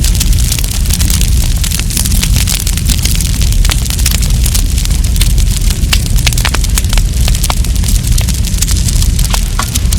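Wood campfire burning: many sharp crackles and pops over a steady low rumble.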